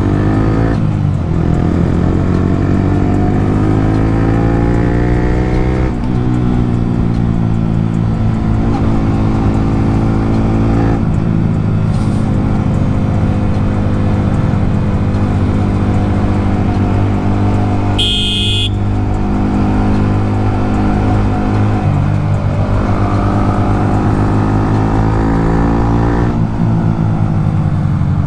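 Yamaha R15M's single-cylinder engine heard from the saddle, accelerating through the gears: the pitch climbs in each gear and drops at each upshift, several times over. A brief high-pitched beep cuts in about two-thirds of the way through.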